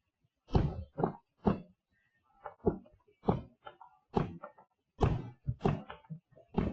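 Aerial fireworks shells bursting in quick succession, about a dozen sharp booms, some landing in close pairs, in a rapid run typical of a finale.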